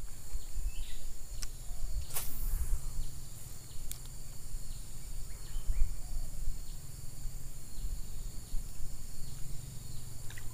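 Steady high-pitched insect chorus with a low rumble on the microphone, broken by a few sharp clicks about two and four seconds in.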